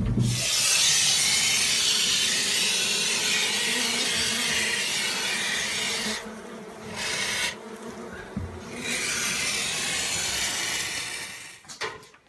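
A can of expanding foam spraying with a loud hiss as it seals the crack where the bees get in. One long spray of about six seconds, a brief one, then another of about three seconds, with bees buzzing.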